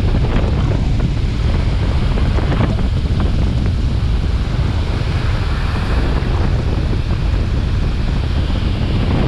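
Steady, loud rush of wind buffeting the microphone and water spraying off the side of a speeding river water taxi.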